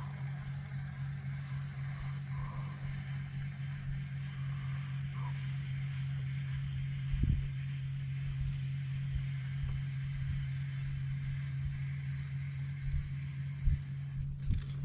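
Electric foot-controlled trolling motor running at low speed with a steady low hum, and a single knock about seven seconds in.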